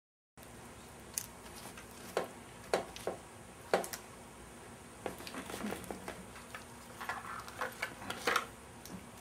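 Gloved hands handling hydraulic flat-tappet lifters at their cardboard boxes: scattered light clicks and taps of small metal parts, with rustling in between, starting after a brief silence.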